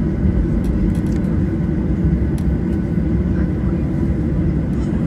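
Airliner's jet engines and rushing air heard from inside the passenger cabin: a loud, steady low rumble with a faint whine above it.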